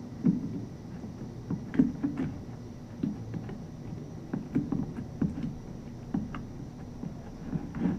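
Slime being squished and poked by hand, giving irregular short pops and squelches, about a dozen over several seconds.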